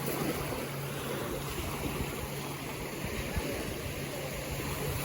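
Shallow lagoon water and wind making a steady wash of noise, with a faint steady low hum underneath.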